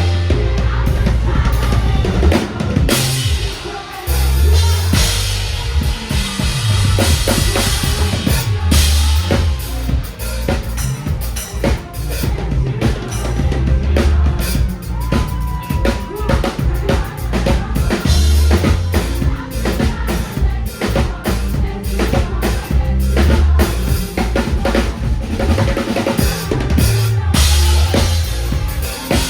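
Band music with a busy drum kit, kick and snare hits throughout, over bass notes that hold and change every second or two.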